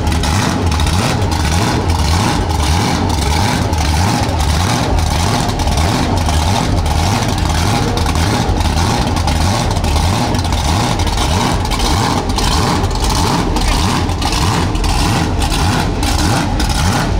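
Truck engine noise mixed with music that has a steady beat of about two hits a second and a heavy, shifting bassline.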